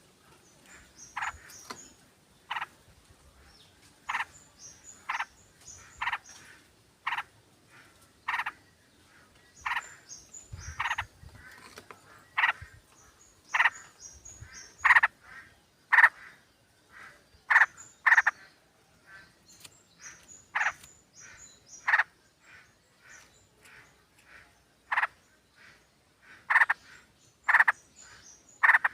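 Yellow-vented bulbuls (trucukan) calling as a group, short loud notes repeating about once a second with faint high chirps in between.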